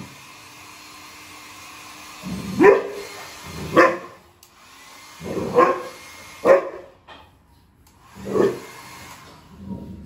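Rottweiler barking five times, deep single barks about a second apart, with a hand-held hair dryer blowing steadily behind them.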